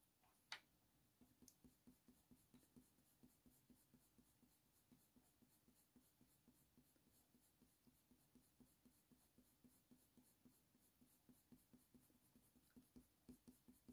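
Faber-Castell Polychromos coloured pencil scratching very faintly on hot-press watercolour paper in short, quick, repeated fur strokes, about three or four a second.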